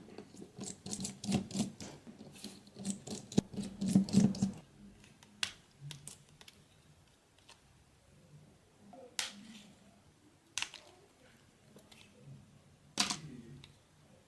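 Nokia 5800 XpressMusic phone being taken apart by hand: a quick run of small plastic clicks and taps for about four seconds, then a few single sharp clicks with quieter handling between them.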